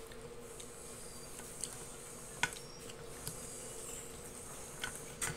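Metal forks clinking against a glass baking dish a few times, the sharpest click about two and a half seconds in and another near the end, over a steady faint hum.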